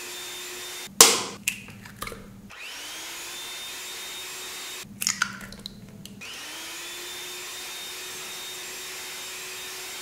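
Electric hand mixer beating butter-and-sugar cake batter in a glass bowl, its motor whine spinning up with a rising pitch each time it starts. The mixer stops twice: an egg cracks sharply about a second in, and another egg is cracked and broken open with a few small clicks about five seconds in.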